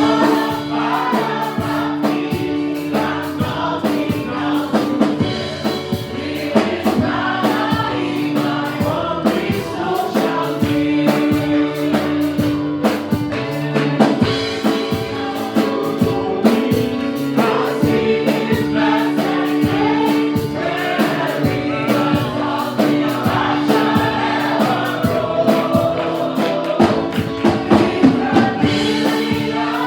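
A gospel praise-and-worship song: a choir singing over a band with a steady drum beat and sustained chords.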